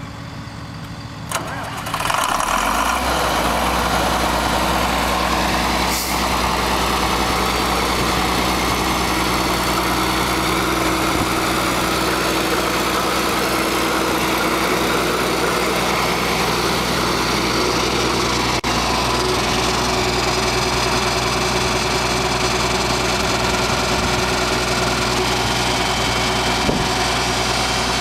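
John Deere 4430 tractor's six-cylinder diesel engine starting about two seconds in and then idling steadily.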